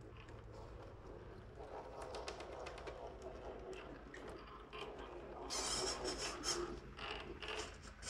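Redcat Ascent RC rock crawler working its way over boulders: faint mechanical drivetrain whirring with many small clicks and scrapes of tyres and chassis on the rock, growing louder about five and a half seconds in.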